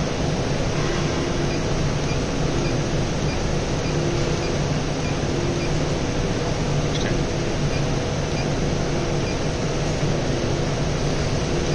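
Fan running steadily: an even hiss with a low hum.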